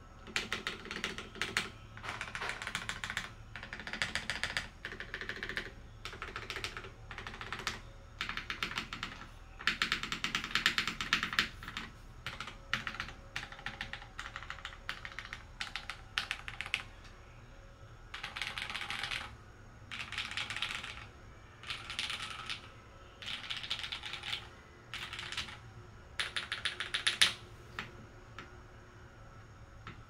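Typing on an LZ XE top-mount keyboard with lubed Cherry MX Red linear switches on a stainless steel plate, in bursts of rapid keystrokes with short pauses between. The typing stops about two seconds before the end.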